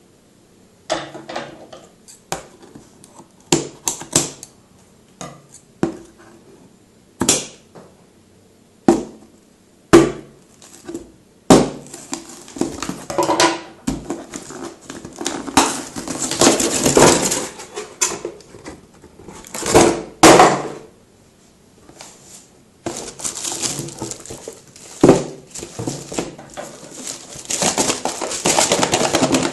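Smartphone box and packaging being handled during unboxing: scattered knocks and clicks, then longer stretches of rustling packaging from about twelve seconds in.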